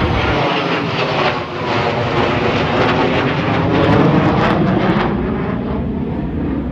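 Pair of Flanker-family twin-engine jet fighters flying past in formation, a loud jet roar. Falling tones sweep through the noise, and it is loudest about four seconds in. The sharp top of the roar then fades as the jets move away.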